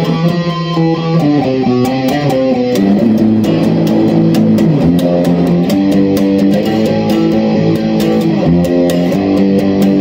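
Background music led by electric guitar, with a steady beat.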